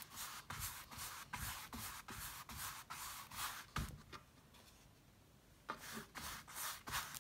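Big flat paintbrush scrubbing acrylic paint back and forth across a stretched canvas, about two to three strokes a second. The strokes stop for a second or two past the middle, then start again.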